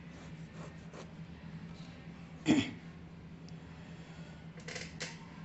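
Pen scratching faintly on notebook paper in short strokes as a heading is written and underlined, over a steady low hum. One brief, louder noise about two and a half seconds in.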